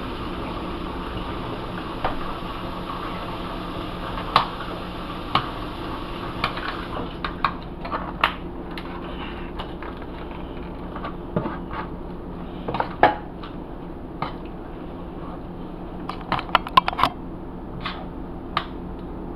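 Metal spoon scraping and clinking against a stainless steel skillet as a thick cream sauce is stirred, with scattered sharp taps and a quick cluster of clinks near the end. A steady low hum runs underneath.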